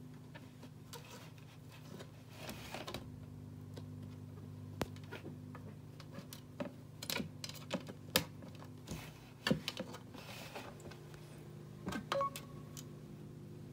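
Cat pawing at a plastic electric pet water fountain: irregular clicks and taps of paw and claws on the plastic lid and spout, with a few water splashes, over the steady low hum of the fountain's pump.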